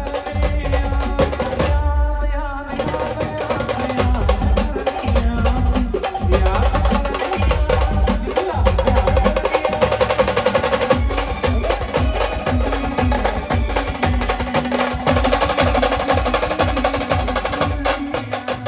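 Indian wedding-style brass band music: a held brass melody over fast, dense drumming. The drums drop out briefly about two seconds in, then come back.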